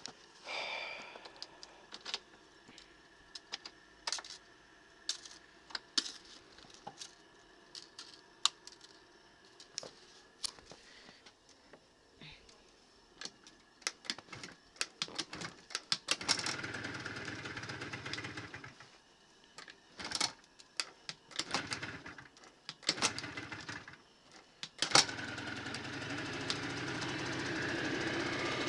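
Aprilia SR50R scooter's carburetted 50cc two-stroke engine being started from cold in snow. A long string of clicks and knocks, then the engine fires and runs for a couple of seconds about 16 seconds in and dies. It splutters in short bursts, then catches about 25 seconds in and keeps running steadily.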